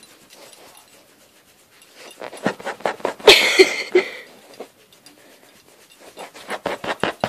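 Rapid thumping and scratching as a small curly-coated dog's hind leg kicks against a leather couch while its flank is scratched, the scratch reflex, with fast runs of taps about six a second near the end. A brief breathy sound a little after three seconds in.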